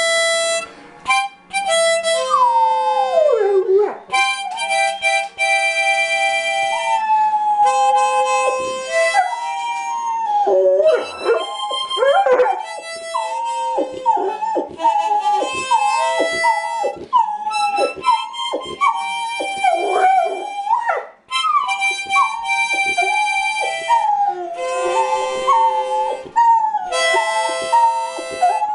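A yellow Labrador retriever howling along to a harmonica. Its long howls slide up and down in pitch over the harmonica's held notes.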